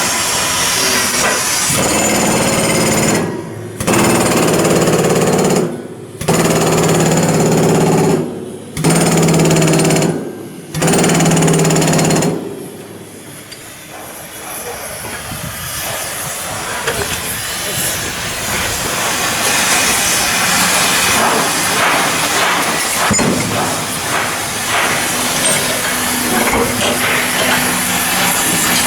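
Shipyard work noise: a power tool runs in four bursts of about two seconds with short pauses, then gives way to a continuous hissing, clattering din of metalworking.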